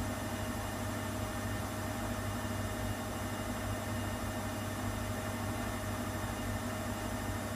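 Steady, even hum from a Schulthess Spirit 6155 front-loading washing machine, its drum standing still with water in it.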